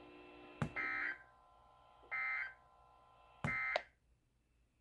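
Emergency Alert System end-of-message signal: three short bursts of buzzy digital data tones, about a second and a half apart, marking the end of the alert.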